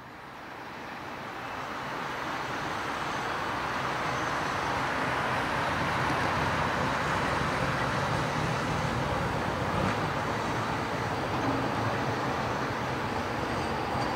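Siemens Avento tram-train rolling toward the listener on its track, a steady running noise mixed with street traffic. The sound swells over the first few seconds, then holds steady.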